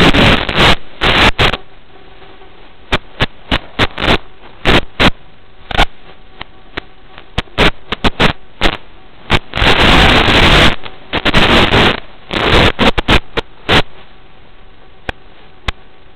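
Irregular bursts of hissing radio static from an analog FPV video receiver's audio channel, cutting in and out suddenly over a faint steady hum. Most are short crackles, one runs for about a second around the middle, and the last couple of seconds hold only a few clicks.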